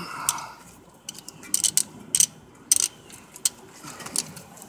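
Irregular clicks and clacks of hand tools and metal and plastic parts being handled at the engine's crankshaft position sensor during its removal. The sharpest clicks come in quick clusters between about one and a half and three seconds in.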